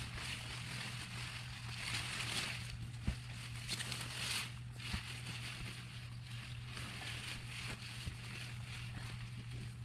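Beet leaves and stems rustling in waves as the plants are handled and pulled, with a few faint snaps, over a steady low hum.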